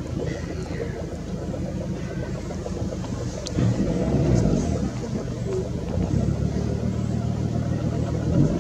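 An engine running with a steady low rumble, swelling louder about three and a half seconds in and again in the second half.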